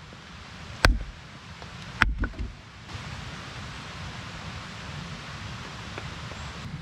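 Steady hiss of rain. About a second in there is a sharp knock, and another about two seconds in, followed by a few smaller knocks.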